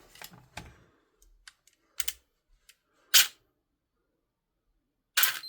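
A few short, sharp mechanical clicks and clacks from the airsoft rifle's parts being worked by hand. The loudest comes about three seconds in, with another just before the end.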